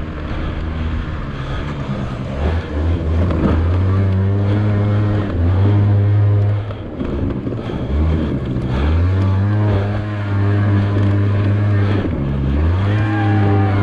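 Small scooter engine at hard throttle off-road, its revs dropping off and climbing again several times as the rider backs off and opens up.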